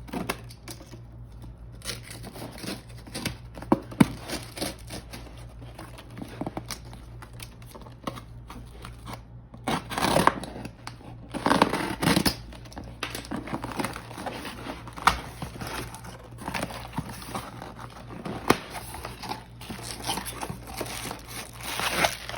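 A cardboard box being opened by hand: irregular tearing, rustling and crinkling of the box and its packing, with scattered clicks and a few louder tearing bursts around the middle and near the end.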